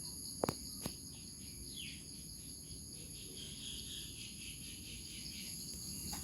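Steady high-pitched chorus of insects, crickets trilling, with two sharp clicks about half a second and one second in.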